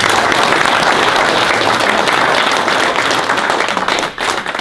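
Audience applauding: dense clapping from many hands that dies away near the end.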